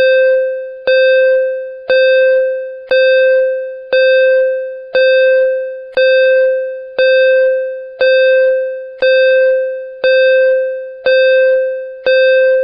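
Countdown timer sound effect: a bell-like ding struck about once a second, each tone fading away until the next strike.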